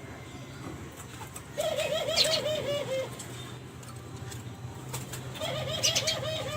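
Derkuku Kelantan (a spotted dove strain) cooing: two phrases, each a quick run of about eight even notes that drops slightly at the end, the second phrase about four seconds after the first. The birds are bred as lure callers, their song used to set other doves calling.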